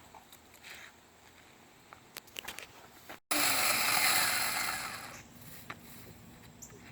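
Electric chainsaw cutting: faint ticks and clicks at first, then after an abrupt cut a loud rushing saw noise that lasts about two seconds and fades away.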